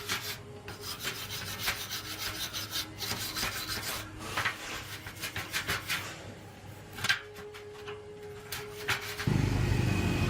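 Quick hand rubbing strokes, like filing or sanding, repeated many times with short pauses. About nine seconds in, a steady electric machine hum starts up and stays loud.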